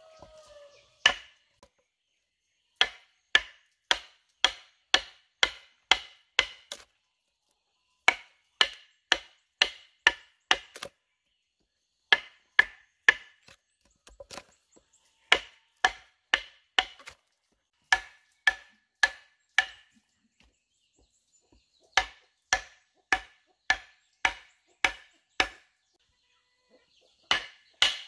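Wooden mallet driving a chisel into the hollow of a log mortar, sharp knocks with a short ring. The blows come in runs of five to eight at about two a second, with brief pauses between runs.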